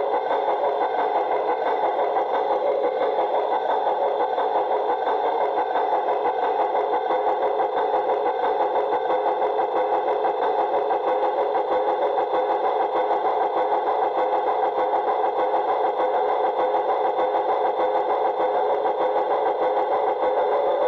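LGB garden-scale model Mallet locomotive's electric motor and gear drive running, a steady whirr with a fast fine flutter, heard from a camera riding in the cab.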